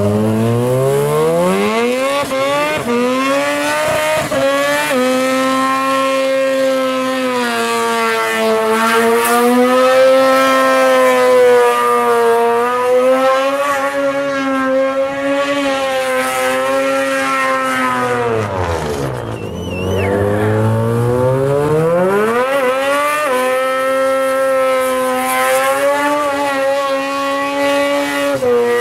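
Boosted 13B two-rotor rotary engine in a Suzuki van revving up and held at high revs during a burnout. The revs drop sharply about two-thirds of the way through, then climb back and hold high again.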